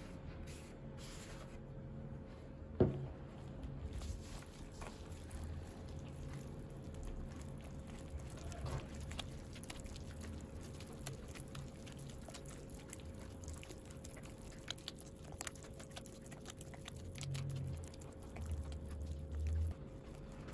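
A hand kneading flour into a wet yeast dough in a glass bowl: soft, sticky squishing of the dough, with one sharp knock about three seconds in.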